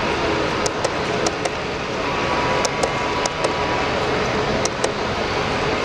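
HO-scale model passenger train rolling past on its track, with irregular light clicks over a steady background noise.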